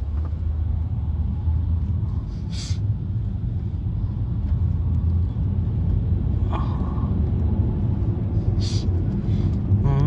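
Road noise heard inside a moving car: a steady low rumble of engine and tyres, with two short hisses, one a couple of seconds in and one near the end.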